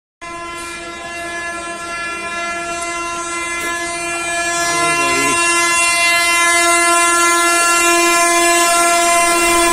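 An approaching express train's locomotive horn, sounded as one long continuous blast that grows steadily louder as the train closes in at speed.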